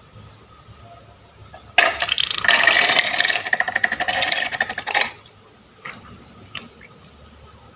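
Crunchy slime materials crackling and rattling densely for about three seconds: many fast fine clicks that start about two seconds in and stop suddenly, with a few faint taps around them.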